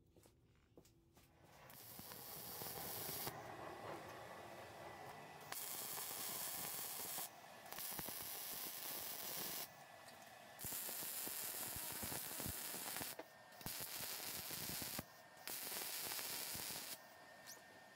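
MIG welder arc crackling and sizzling as fittings are welded onto a steel cylinder. It comes in about six runs of one to three seconds each, with short breaks between them.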